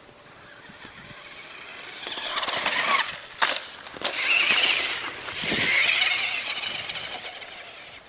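Traxxas Rustler RC truck's brushed electric motor whining under throttle, building over the first couple of seconds. Two sharp clicks come a little past halfway, followed by two long swells that fade near the end.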